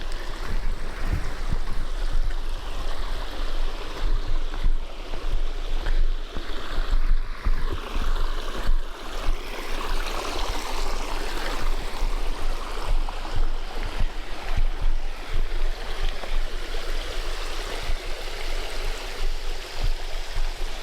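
Creek water spilling over a small waterfall on a shale streambed: a steady rushing of water, with short low thuds on the microphone scattered throughout.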